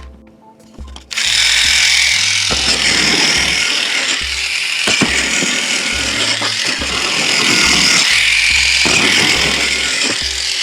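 Background music with a repeating bass line. About a second in, a loud, steady hissing noise starts and runs on over it.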